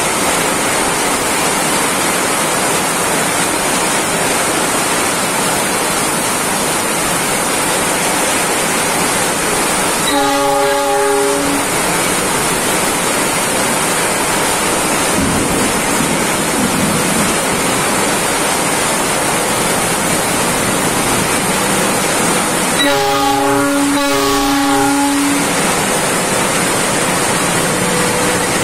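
Heavy rain pouring steadily, with a KAI CC 206 diesel-electric locomotive's multi-note horn sounding once about ten seconds in and twice in quick succession near the end as it shunts through the station.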